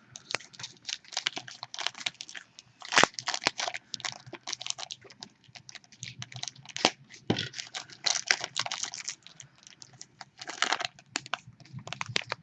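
Handling of a sealed trading-card pack as it is opened: the wrapper crinkling and tearing and the cards being shuffled, a dense, irregular run of crackles and clicks.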